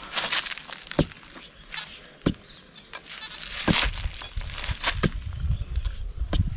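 Iron digging bar jabbed into dry soil and dead leaves: about half a dozen sharp strikes roughly a second apart, with gritty scraping and crunching of soil and leaves between them.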